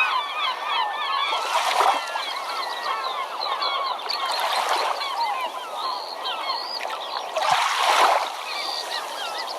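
A flock of birds calling, many short chirping and squawking calls overlapping without a break, with three brief rushes of noise, like splashing water, in between.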